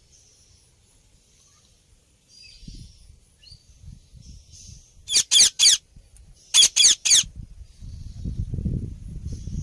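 Parrot calling: a few soft chirps, then two quick bursts of three loud, harsh screeches about a second and a half apart. A low rumbling noise comes in near the end.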